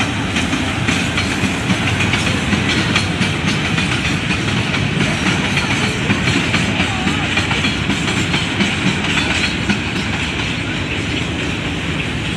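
A freight train of railway fuel tank wagons rolling past on the track, its steel wheels clicking over the rail joints in a steady clickety-clack.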